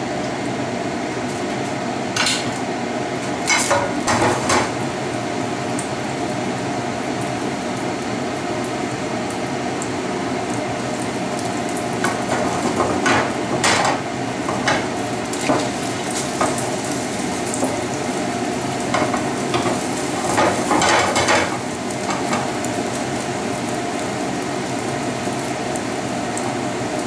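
Beaten eggs frying in hot oil in a frying pan, with a steady sizzle. A spatula scrapes and knocks against the pan a few times, about two seconds in, midway and again near twenty seconds.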